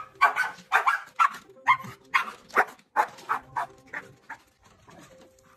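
Dog barking excitedly in a quick run of short barks, about three a second, tailing off about four seconds in. The excitement follows the offer of a swim.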